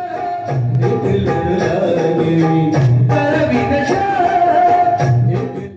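Music: a pitched melody over low held notes, with regular percussion strokes. It cuts off abruptly at the very end.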